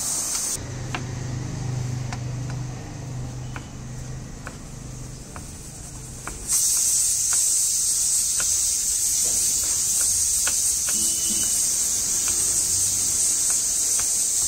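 Kitchen knife chopping onion and then tomato on a wooden cutting board: light, irregular taps. Behind it runs a steady, loud high hiss, which drops away about half a second in and returns about six and a half seconds in; a low hum fills the quieter stretch between.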